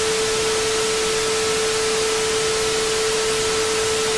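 Edited-in static sound effect: an even hiss of white noise with one steady mid-pitched tone through it, starting and stopping abruptly.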